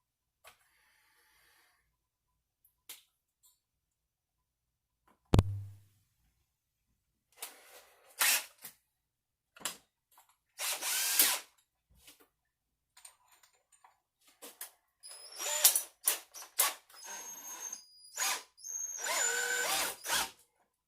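Tape being pulled off a roll in several ripping pulls, some lasting about a second, while the gold hog sluice mat is being taped up, with a single thump about five seconds in.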